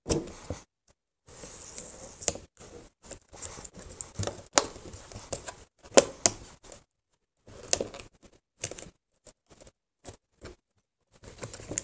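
A small product box being unboxed by hand: irregular taps, scrapes and short rustles of the box and its packaging, with brief silent gaps between them.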